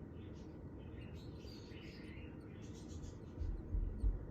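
Fischer's lovebirds giving short, high chirps several times. Dull low bumps, like handling noise, come in near the end.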